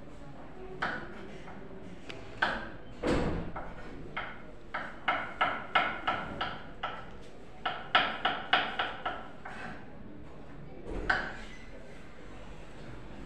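Kitchen knife chopping on a wooden cutting board: sharp taps, a few single ones and two quick runs of about three to four taps a second near the middle.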